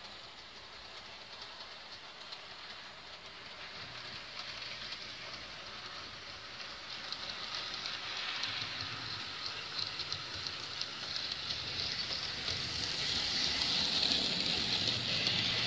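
HO-scale Mehano 2-6-0 Camelback steam locomotive and its cars running on sectional track: a fine, rattling whir of wheels and motor with tiny clicks and a low hum beneath. It grows steadily louder as the train approaches and is loudest near the end as it passes close by.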